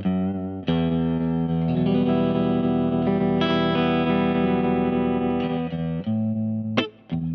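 Electric guitar (a Yamaha Revstar) played through the Space Sounds Cosmic Tremolo pedal into an amp, its volume pulsing evenly. A chord is struck and left to ring for several seconds, then a few short chords are strummed near the end.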